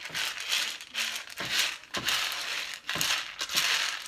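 Dry pinto beans rattling and sliding against a stainless steel pan as a hand sweeps through them, in repeated swishes a little more than once a second, while they are picked over for bad beans.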